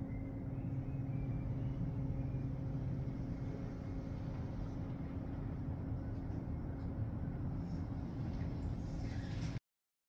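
Steady low drone of a cruise ship's engines and machinery, with a constant hum running through it; it cuts off suddenly near the end.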